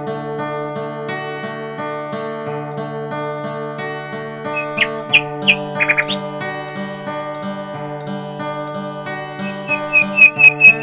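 Background music with a plucked acoustic guitar over steady sustained notes. Short bird chirps come through about five to six seconds in and again near the end.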